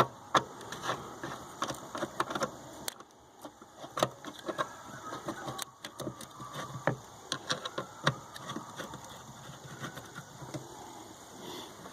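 Irregular clicks and taps of a hand tool loosening the hose clamps on a pickup's stock air intake tube, with metal and plastic knocking now and then.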